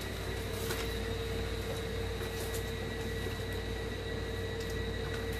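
Steady hum with a hiss beneath it, with a few faint clicks as ravioli are taken from a plastic tray and dropped into a pot of boiling water.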